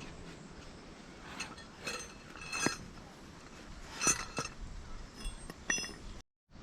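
Tableware clinking: several light, sharp knocks that ring briefly, the loudest about two and a half and four seconds in.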